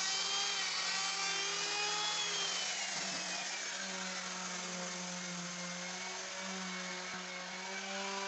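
Electric plunge router whining as it cuts a rabbet into a wooden window frame. About two to three seconds in, it is switched off and its pitch falls as it coasts down. A steady machine hum continues underneath.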